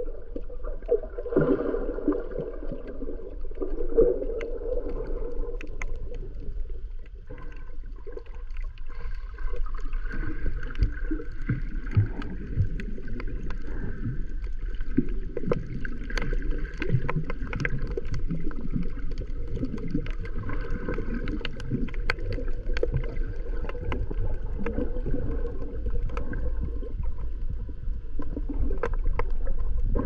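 Muffled underwater sound picked up by a camera held below the surface: a steady low water rumble with scattered crackling clicks.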